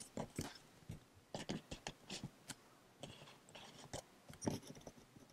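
Faint, irregular clicks and scratchy ticks of fingers handling a camera's controls while switching it to manual focus.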